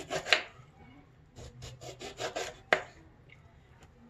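Knife sawing back and forth through a lemon to slice it: two runs of quick rasping strokes, about six a second, the second run ending in one sharp knock.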